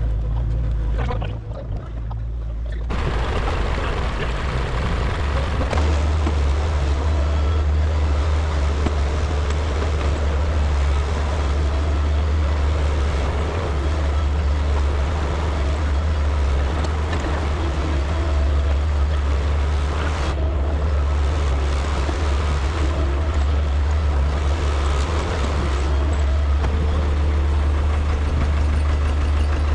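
A heavy engine running steadily under load. It grows louder about three seconds in, and a deep hum sets in a few seconds later.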